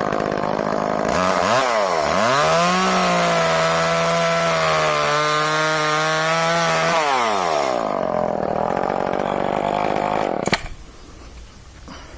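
Echo CS-305 30cc two-stroke chainsaw idling, then throttled up to full speed and held there for about five seconds while cutting wood, its pitch dipping briefly as the chain bites. It then drops back to idle and is switched off about ten seconds in.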